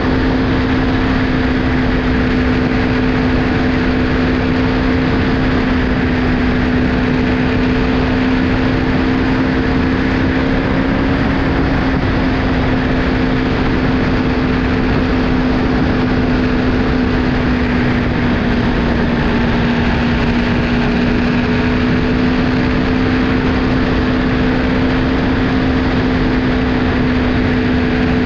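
Motorcycle V4 engine of an Aprilia Tuono 1100 Factory R running at a steady cruising speed. Its note holds nearly one pitch, dipping slightly about two-thirds of the way through, under a constant rush of wind and road noise.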